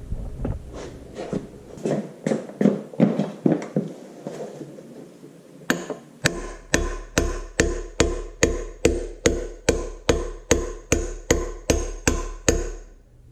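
Hammer blows on a 1-3/4 inch socket, driving the upper seal down into the front bolster of a Farmall Super MTA tractor: uneven, lighter taps at first, then from about halfway a steady run of sharper metal strikes, about two and a half a second, that stops just before the end.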